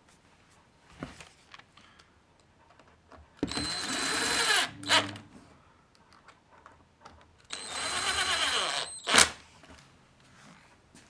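Cordless drill driving screws into a wooden block, twice: each run is a steady motor whine of about a second and a half, ending in a sharp crack.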